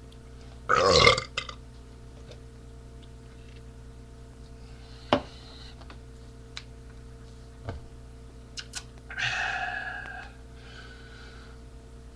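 A man burping: one loud, short burp about a second in, then a longer, drawn-out burp and a fainter tail near the end. A single sharp tap comes in between, over a steady faint hum.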